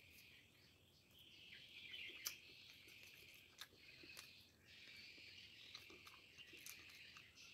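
Near silence: a faint, high, wavering chirping in the background, with a few soft clicks as an ice cream bar is eaten.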